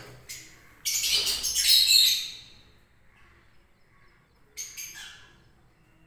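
Lovebirds squawking and chattering in high-pitched bursts: a loud burst about a second in lasting over a second, and a shorter one near the end.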